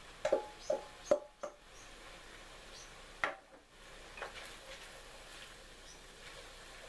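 A stainless steel mixing bowl knocked against the rim of a wok as rice noodles are tipped in: four quick metallic clanks with a short ring in the first second and a half, and one more knock about three seconds in. After that, a wooden spatula stirs the noodles in the wok with soft scraping.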